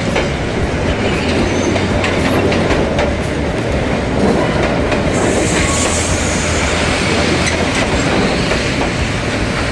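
A train passing close by, its wheels rumbling and clattering on the rails, with a high wheel squeal for a couple of seconds past the middle.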